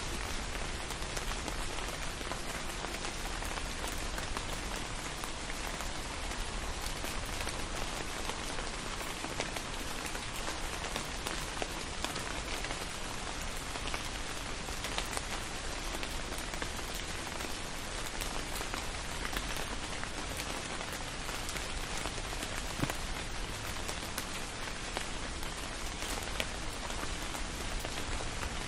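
Steady rain falling, a constant even hiss with scattered close drop hits.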